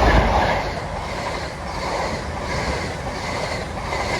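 CrossCountry InterCity 125 HST (Class 43 diesel power cars and coaches) passing at speed: loudest in the first second as the leading power car goes by, then a steady rush of the coaches with a regular beat of wheels on the rails.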